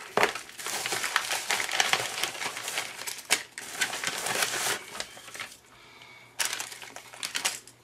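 Plastic mailer and packaging crinkling and rustling as a package is unpacked by hand, with a few sharp knocks. It goes quieter for a moment around six seconds, then rustles again near the end.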